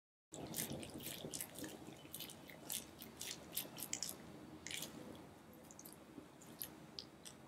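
A soft pink brain-shaped squishy stress ball squeezed and kneaded in the hands: squelching with many small crackles and pops. It starts just after the opening instant and thins out toward the end.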